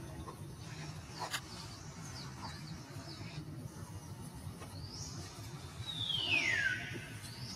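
An animal call: a loud high cry sliding down in pitch over about a second near the end, led in by a short rising chirp. Faint chirps and a single sharp click come earlier.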